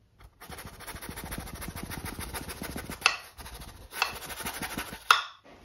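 Paintbrush bristles scrubbing rapidly over a stretched canvas with acrylic paint, a steady scratchy rubbing. Three sharper knocks come about a second apart near the end.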